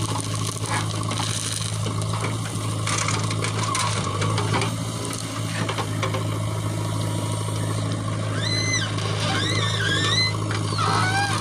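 JCB backhoe loader's diesel engine running steadily, with a few short high squeals that rise and fall about two-thirds of the way through.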